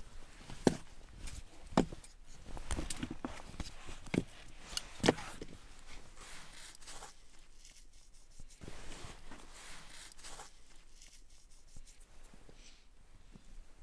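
Split firewood logs knocking against each other and the firebox as they are loaded into a brick stove. There are several sharp wooden knocks in the first five seconds, then softer scraping and rustling.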